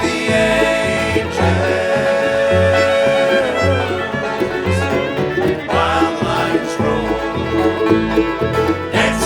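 A bluegrass band playing an instrumental stretch of a song, with banjo, fiddle and guitar. A long held note sounds about a second in over a steady low pulse.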